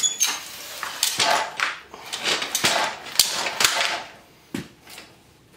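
DeWalt DWX726 rolling miter saw stand being raised from folded to upright with a heavy miter saw on top: its yellow steel legs and frame scrape and rattle in a quick run of metal clanks and clicks for about four seconds, then one more knock.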